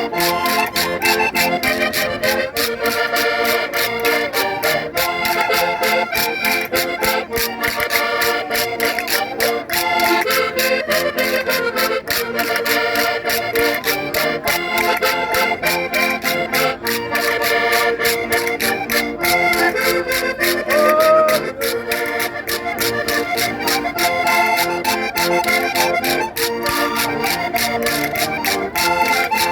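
Concertinas playing a lively traditional folk dance tune, with an even beat of sharp strikes. A brief rising call stands out about twenty-one seconds in.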